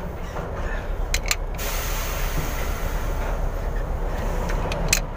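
Large pipe wrench turning a loosened differential pinion nut, giving a few sharp metal clicks about a second in and again near the end as the wrench is worked and reset on the nut, over a steady low rumble.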